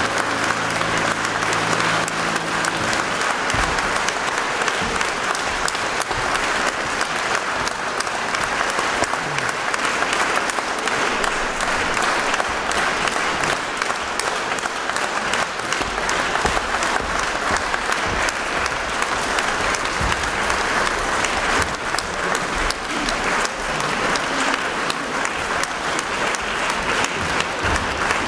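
Concert-hall audience applauding: dense, steady clapping. The last held chord of the music dies away in the first few seconds.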